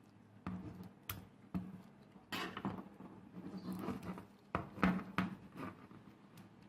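Irregular clicks, knocks and short scrapes, as of hand work with tools, over a faint steady low hum.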